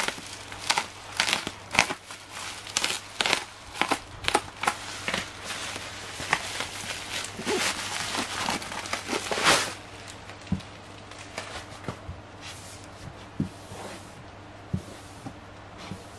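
Black plastic wrapping and packing tape being torn and crinkled off a cardboard parcel by hand: a quick run of sharp crackling rips for about ten seconds, then only a few scattered, quieter crackles.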